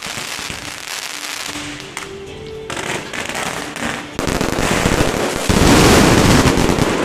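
Firecrackers going off in a fast, continuous crackle as a welcoming salute, growing louder and denser about four seconds in, with music underneath.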